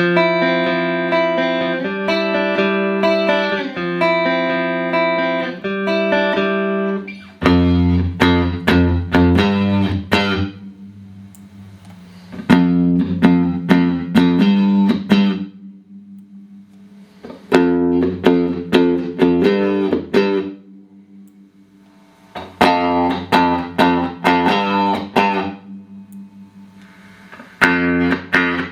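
Clean electric guitar played through a Boss GE-7 equalizer pedal into Roland JC-120 amps. It opens with held chords that change every second or two, then moves into short phrases of quickly picked chord notes, each left to ring out in a brief pause.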